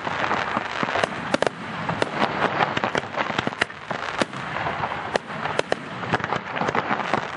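Aerial firework shells bursting in quick, irregular succession. The many sharp bangs sit over a steady rushing noise from the display.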